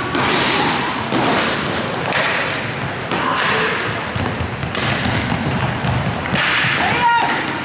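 Inline roller hockey in play: repeated thuds and clacks of sticks, puck and inline skates on the rink floor and boards, echoing in the sports hall.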